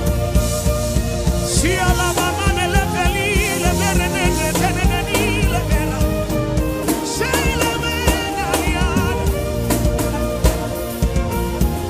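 Gospel worship band music with drum kit and a steady beat. A wavering melody line with vibrato comes in about a second and a half in and again about seven seconds in.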